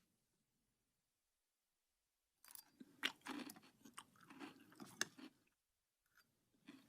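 Faint, irregular chewing and crunching. It is quiet for the first two seconds or so, runs for about three seconds, stops briefly, and starts again near the end.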